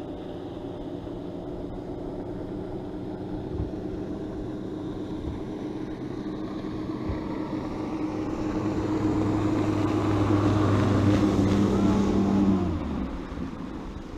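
Outboard motor of an approaching boat running steadily, its engine note growing louder as it nears, then dropping away sharply near the end as it slows to pull up alongside.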